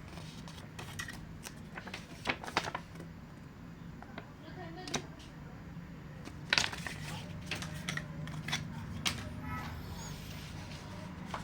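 Scattered sharp clicks and taps, about half a dozen, the loudest about six and a half seconds in, over a steady low hum.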